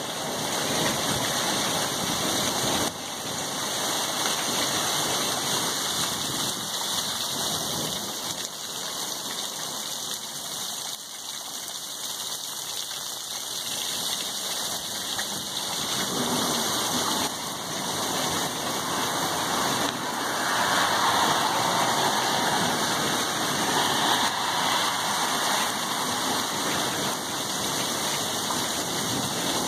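Hailstorm: hail and heavy rain falling steadily, a dense hiss that grows heavier after about two-thirds of the way through.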